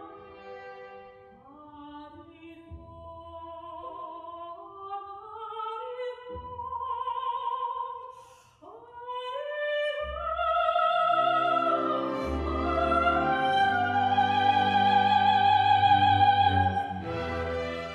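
Soprano singing with a chamber orchestra, her voice wavering in a wide vibrato. Soft phrases over light accompaniment, then after a short break the strings swell and she rises to a loud, long-held high note near the end.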